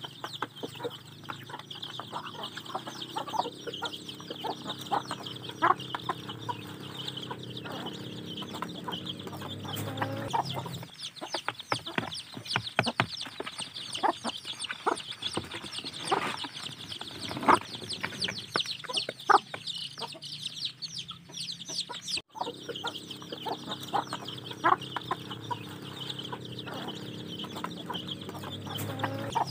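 A flock of Indonesian kampung chicks peeping continuously while hens cluck, the birds feeding at a trough. Through the middle there is a dense run of sharp taps, fitting beaks pecking at cracked corn on the trough.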